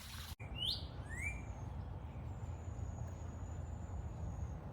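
Birds chirping: a few short rising and falling calls about a second in, then a thin, high, steady note lasting about two seconds, over a low steady rumble.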